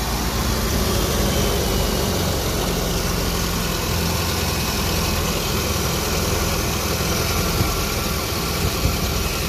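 Jeep Wrangler YJ engine idling steadily, running again after its burnt-out fusible link was replaced.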